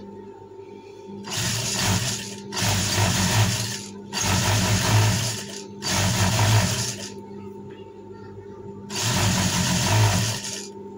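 Industrial lockstitch sewing machine stitching in five short runs of a second or so each, with pauses between them as the fabric is repositioned and a longer pause near the middle.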